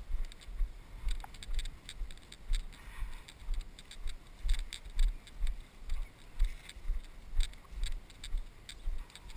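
Walking footsteps through grass, heard as regular thuds about two a second with a light swish or crackle on each step, picked up by an action camera worn by the walker.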